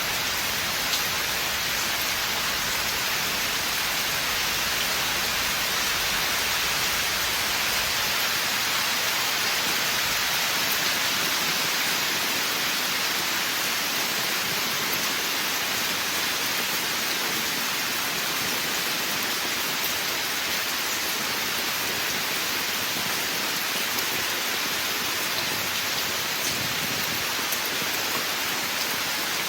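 Steady rain falling in a forest, an even hiss with faint scattered drops.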